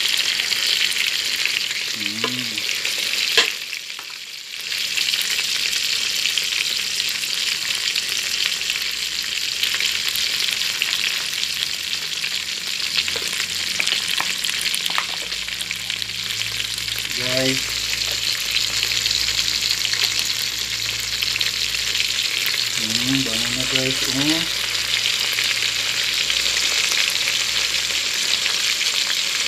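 Onion, garlic, ginger and lemongrass frying in oil in an aluminium pot: a steady sizzle that carries on as raw chicken pieces go in, with one sharp knock about three seconds in.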